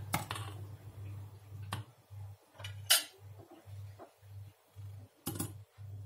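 Metal ladle clinking against a stainless steel pot and a ceramic bowl as soup is served, a few sharp clinks with the loudest about three seconds in. Under it runs a low hum that pulses on and off about twice a second.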